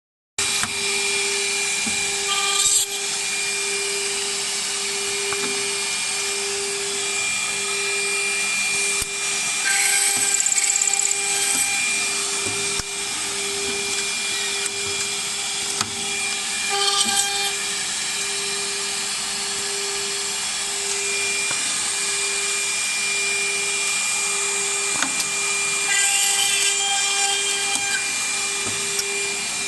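Automatic drilling and tapping machine for wooden brushes running: a steady machine hum with a low tone pulsing about once a second, and about four louder whining bursts as the spindles drill and tap screw holes in the wood.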